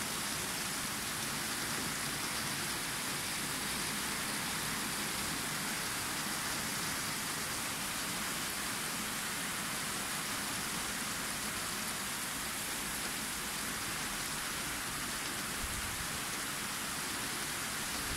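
Heavy rain pouring steadily: a dense, even hiss of a downpour with no let-up.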